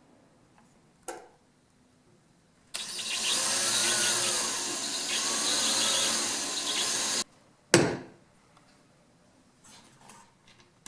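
Power drill running for about four and a half seconds, pre-drilling a pilot hole for a small screw in the circular saw; its motor pitch rises and falls twice, then it stops suddenly. A click comes shortly before it starts and a louder knock just after it stops.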